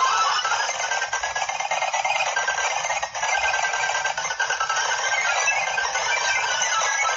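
A dense, steady stream of rapid clicking noise.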